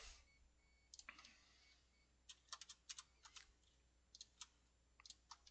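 Faint clicks from a computer keyboard and mouse: scattered single clicks and quick runs of two to four.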